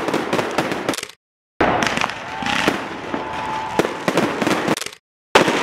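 Fireworks display: a dense run of bangs, pops and crackles from aerial shells and rockets, with a faint steady whistle in the middle. The sound cuts out completely twice for a moment, about a second in and near the end.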